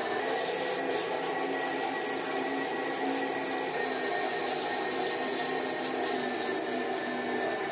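Overhead shower spray running steadily, water pattering onto hair and tile, with a steady hum underneath.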